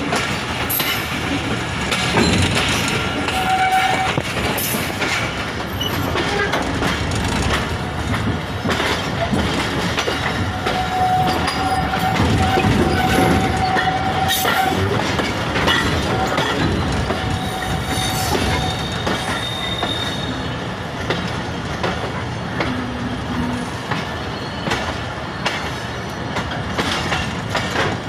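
Passenger train coaches running over the track, heard from an open coach door: a steady rumble with frequent clicks and knocks as the wheels cross rail joints and points. A few thin, steady high-pitched tones sound over it, the longest near the middle.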